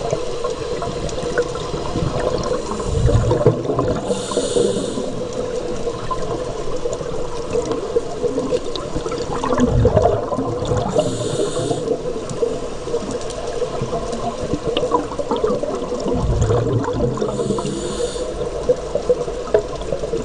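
Scuba diver breathing through a regulator underwater: three breaths about seven seconds apart, each a low gurgling rumble of exhaled bubbles followed by a hiss of inhaled air. Underneath is a steady hum and a faint crackle.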